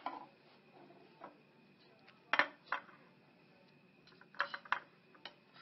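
Fork and plate being set out on a table, giving a few short clinks and knocks: two about two and a half seconds in, then a quick cluster around four and a half seconds.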